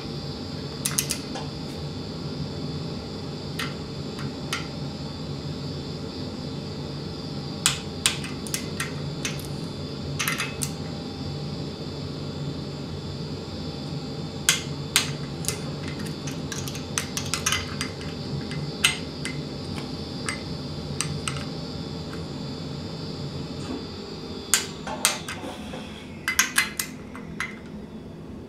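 Scattered sharp metallic clicks and clinks, some in pairs and short bunches, from a socket ratchet and steel tools tightening the cam timing-gear bolts on a Ford flathead V8 block. A steady background hum runs underneath and drops away a few seconds before the end.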